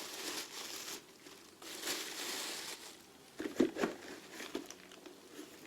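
Wrapping crinkling and rustling as a part is handled, in two stretches, followed a little past halfway by a few short, low knocks or bumps.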